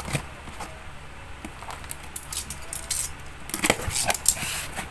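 A cardboard delivery box being opened: packing tape slit and the cardboard flaps pulled apart, making a run of scratchy scrapes and clicks that gets busier in the second half.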